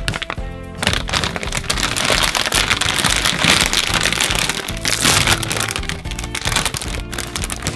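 A multi-layer, foil-lined plastic snack bag being pulled open by hand, crinkling and crackling densely from about a second in until near the end, loudest in the middle. Background music plays beneath.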